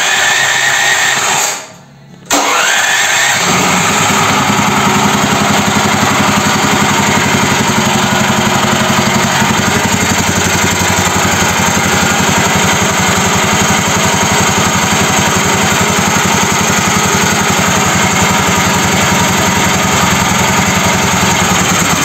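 Electric starter cranking the mini tractor's BRAIT engine twice: the first try stops after about a second and a half, and on the second the engine catches and runs steadily.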